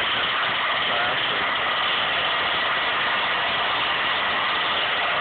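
Steady, even machine drone with a few faint steady tones above it, unchanging throughout, typical of running machinery or ventilation in a large hall.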